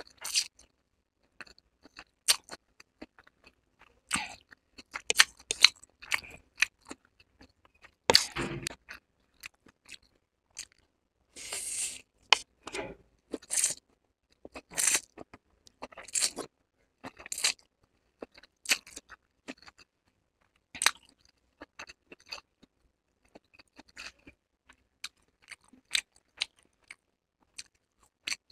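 Close-miked mouth sounds of eating chowmein noodles with soya chunks: wet chewing and lip smacks come as many short sharp clicks, with a few longer slurps of noodles around a third of the way in and near the middle.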